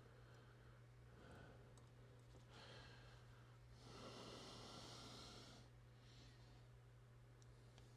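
Near silence with a steady low electrical hum; about four seconds in, a soft exhale lasting under two seconds.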